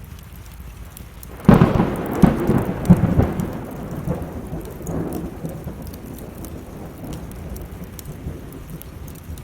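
A thunderclap breaks suddenly about a second and a half in, with a few more sharp cracks over the next second and a half, then a rumble that fades away. Behind it, steady rain and the small sharp crackles of a wood fire burning.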